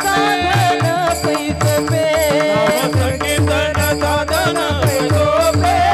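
Men singing a devotional kirtan melody together, with vibrato, while small brass hand cymbals (taal) clash in a steady rhythm. Low drum beats and a steady held drone sound beneath the singing.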